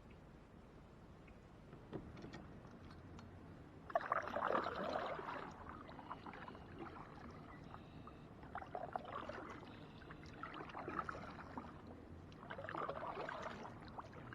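Kayak paddle strokes splashing and dripping in the water, a surge about every two seconds, starting about four seconds in after a quiet stretch with a single click.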